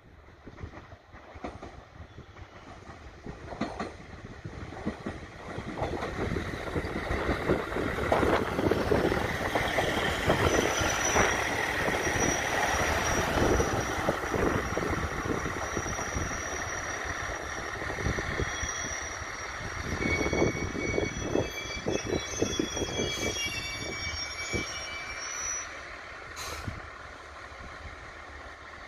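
A two-car KiHa 110 series diesel railcar pulling into a station. Its engine and wheels on the rails grow louder as it comes past, with high-pitched squealing as it brakes and a few clanks before it settles to a stop.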